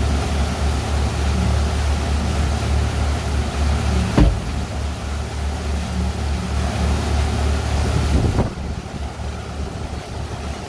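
Steady low engine rumble of a sightseeing boat under way, under a hiss of wind and water. There is a single sharp knock about four seconds in, and the hiss and overall level drop a little near the end.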